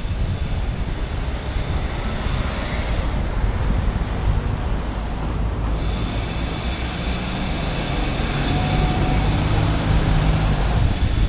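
Wind rushing over the microphone while cycling, mixed with steady road-traffic noise. In the later part a low engine hum comes from a vehicle close ahead.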